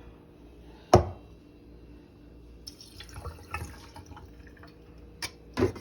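Water being poured and dripping into a rice cooker's inner pot of sticky rice, filled to the 3-cup line. A sharp knock comes about a second in, and a few lighter clicks near the end.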